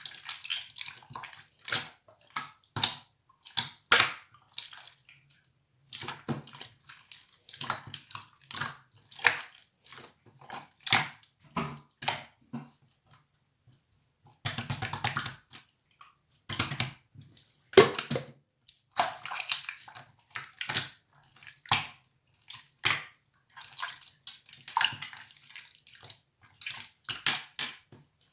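Clear slime with gold pearl pigment being squished and pressed by hand, making irregular wet clicks, pops and crackles.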